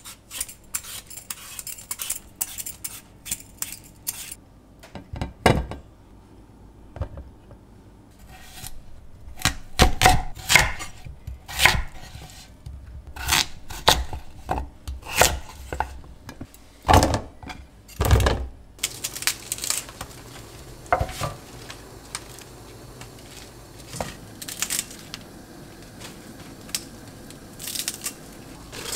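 A vegetable peeler scraping potatoes in quick light strokes, then a kitchen knife chopping potatoes on a wooden cutting board in a run of sharp knocks. Later come lighter knife cuts through spinach leaves.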